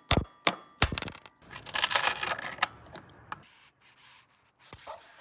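Four sharp knocks in quick succession, then about two seconds of rough scraping and rasping, with a couple of faint clicks near the end: hand-tool work enlarging an opening so an air-conditioner copper pipe can pass through.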